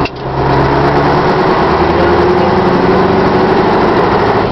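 Scania 142's 14-litre V8 diesel engine running under way, a steady drone. The sound drops briefly right at the start and then comes back up.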